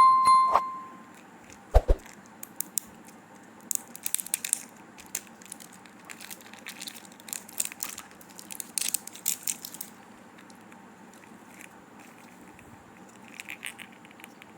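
Candy packaging being handled: irregular bouts of sharp crinkling and crackling of plastic wrappers, after a brief ringing tone and a single thump at the start.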